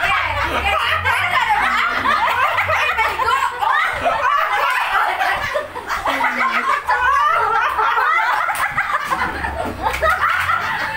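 Several people laughing together, with overlapping voices and bits of talk.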